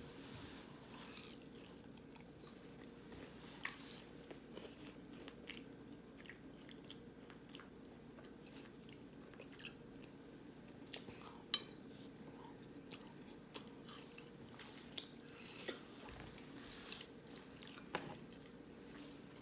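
A person chewing food close to the microphone, with scattered small wet clicks and crunches over a faint steady hum.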